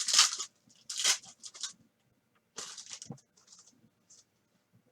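A trading-card pack's wrapper being torn open and the cards handled: several short rustling, crinkling bursts over the first three seconds, then only faint rustles.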